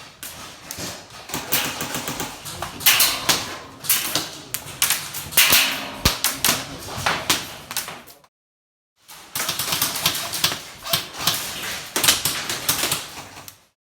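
Airsoft guns firing in rapid bursts of sharp clicking shots.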